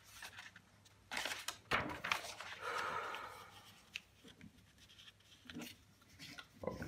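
Paper rustling and sliding as a written sheet is turned over and a blank page is smoothed flat, in a few short bursts with a longer soft swish about three seconds in, then light handling noises.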